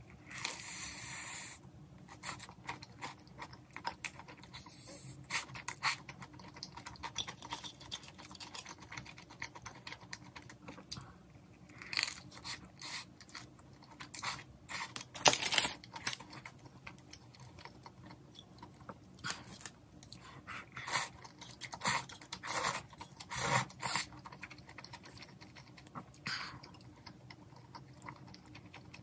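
A person biting and chewing a fried, potato-cube-coated mozzarella corn dog, with irregular crisp crunches of the fried coating; the loudest crunch comes about halfway through.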